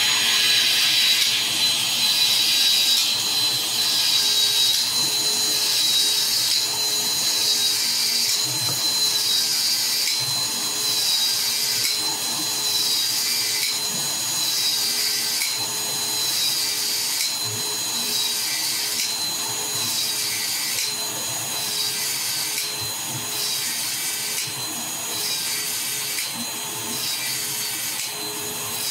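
Uponor PEX expander tool running, its head expanding the end of a PEX pipe and its ring in repeated strokes about once a second over a steady motor whine.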